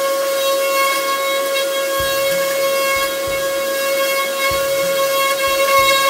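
Random orbital sander with a 240-grit disc running against a car's rear bumper: a steady high-pitched whine over the hiss of sanding.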